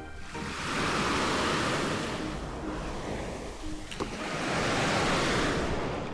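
Surf on a sandy beach: two waves break and wash up, the first swelling about a second in and the second around five seconds in.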